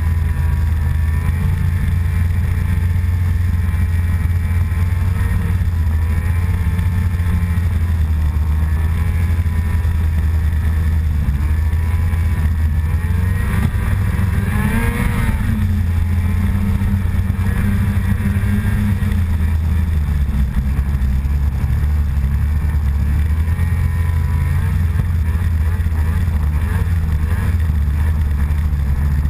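A small vehicle's engine running as it drives over snow, its pitch rising and falling with the throttle and climbing briefly about halfway through, over a heavy low rumble.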